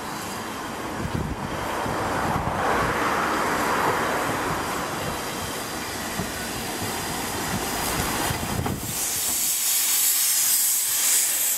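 The double Fairlie steam locomotive Merddin Emrys running slowly toward and past, with steam hissing from its cylinder drain cocks over a low rumble. Near the end the hiss turns loud and high as the locomotive draws alongside.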